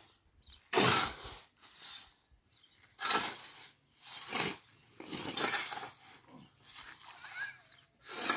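Two metal shovels scraping and digging into a heap of cement and sand, mixing it by hand, with one gritty stroke after another about once a second.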